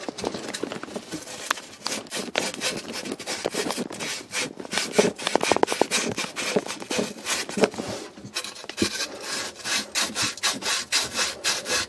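Strip of emery cloth (about 150 grit) rubbed quickly back and forth around the end of a copper water pipe: a run of rapid scraping strokes. It is polishing off burrs and surface corrosion to give a clean sealing surface for a push-fit fitting's O-rings.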